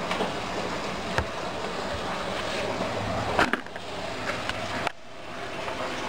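Rustling and rubbing handling noise from a handheld camera being moved about on a desk, with a couple of sharp clicks and knocks about a second in and about three and a half seconds in.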